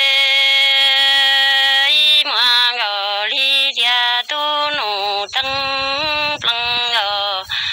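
A single voice singing Hmong kwv txhiaj (traditional sung poetry), with no accompaniment. A long held note gives way about two seconds in to a run of short phrases that slide down and up in pitch, broken by brief pauses.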